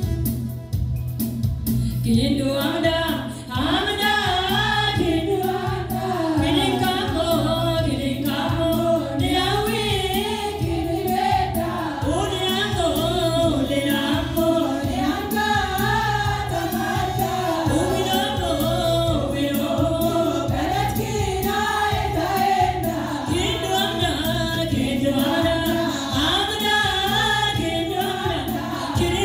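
Ethiopian women's church choir singing a gospel hymn together, the voices coming in about two seconds in and carrying on steadily.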